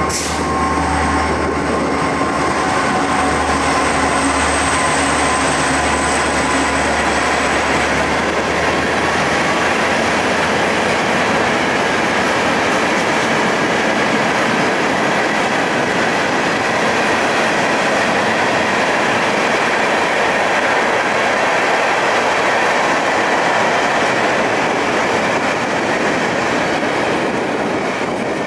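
A freight train of empty steel ore-hopper cars (ore jimmies) rolling past, with a loud, steady noise of wheels on rail and thin squealing tones from the wheels. The diesel locomotive's low engine drone fades away over the first several seconds.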